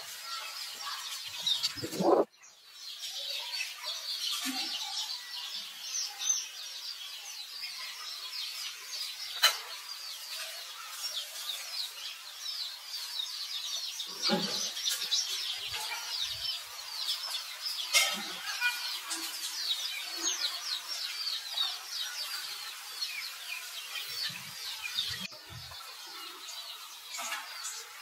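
Many small birds chirping continuously in a dense chorus of quick high notes, with a loud brief thump about two seconds in and a few soft knocks later.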